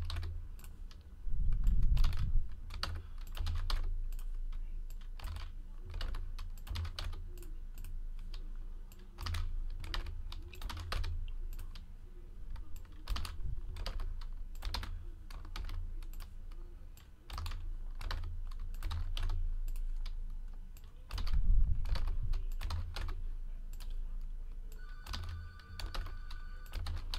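Typing on a computer keyboard: irregular runs of key clicks. Two louder low thumps come about two seconds in and again about three-quarters of the way through, and a short electronic tone sounds near the end.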